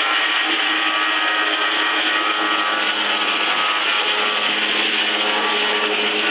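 Small engine of a gardener's power tool running steadily at a constant speed, a continuous buzzing drone.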